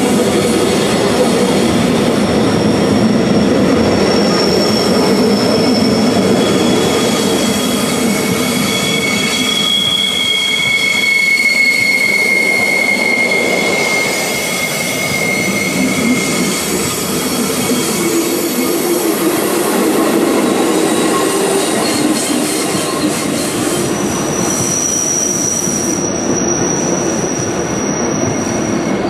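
Metre-gauge Rhaetian Railway passenger train rolling past close by on a curve: a steady rumble of wheels on rails, with the wheels squealing in several high, held tones that come and go, one starting again near the end.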